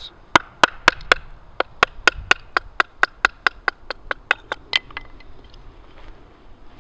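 Wooden stick baton tapping on the spine of a knife to drive it down the side of a wooden billet and split off material to the stop cuts: a quick run of sharp knocks, about four a second, that stops about five seconds in.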